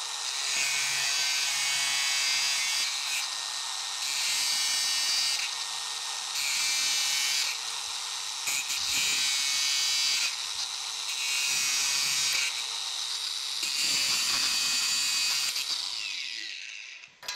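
Cordless angle grinder with a cut-off disc cutting through rusty steel U-bolts. The motor spins up at the start, then runs with a high whine while the cutting noise swells and eases as the disc bites into the steel. It winds down near the end.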